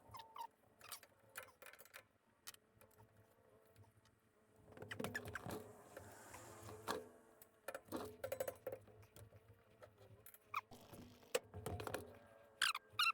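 Scattered small clicks and light metallic clinks as brake caliper parts and tools are handled and fitted, with a busier run of taps partway through and a few sharper knocks near the end.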